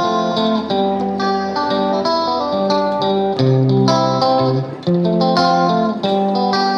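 Background music: a melody of short stepped notes on a plucked string instrument.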